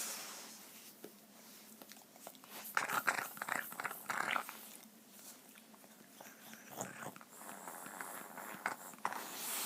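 A pet animal making funny noises in uneven bursts, with a loud cluster a few seconds in and more scattered ones near the end.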